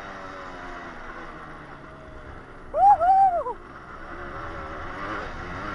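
A 125 cc Yamaha trail motorcycle running at low revs, its engine note easing off and then picking up again. About three seconds in, a short, loud two-part hoot that rises and falls in pitch sounds over the engine.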